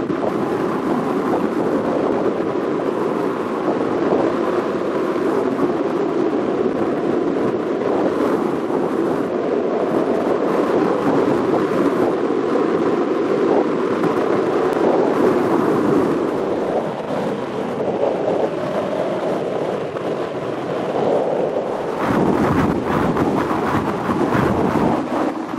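Cruise boat underway in a rough sea: a steady engine drone mixed with rushing water and wind. About 22 seconds in, wind starts buffeting the microphone.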